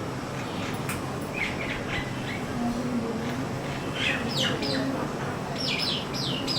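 Common myna calling: short whistled notes that slide downward, coming in quick clusters about a second and a half in, around four seconds, and again near the end.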